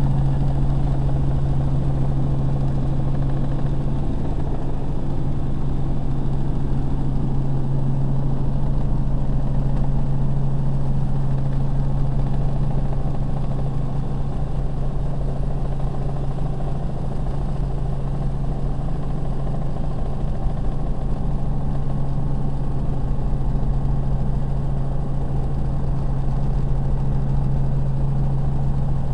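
Helicopter cabin noise in cruising flight: the steady drone of the engine and rotor, dominated by a strong, even low hum.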